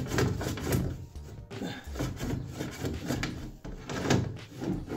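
Chimney sweep's brush and rods scraping and knocking inside the flue in repeated, uneven strokes, about two a second.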